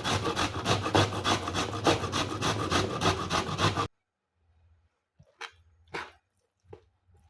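Root vegetable scraped against a kitchen blade in rapid, regular rasping strokes. The scraping stops abruptly about four seconds in, followed by a few faint clicks.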